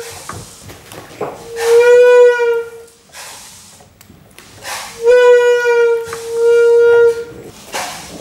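A horn-like wind instrument blown in three long notes on one steady pitch, each about a second long, the last two close together.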